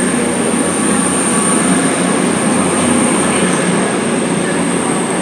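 Diesel train running at the platform: a steady engine and rail rumble with a constant high-pitched whine.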